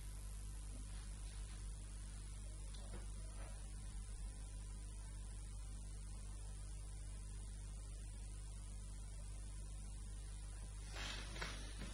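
Steady electrical mains hum with its overtones under a faint even hiss, the noise floor of the recording setup. A few faint rustles come near the end.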